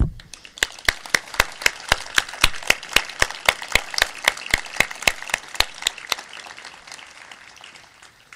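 A crowd applauding, with one clapper close by keeping a steady beat of about four claps a second over the general clapping; the applause dies away about seven seconds in.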